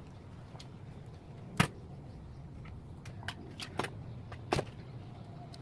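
Several sharp knocks over a low steady rumble: a loud one about one and a half seconds in, a few lighter ones around three to four seconds, and another loud one near the end.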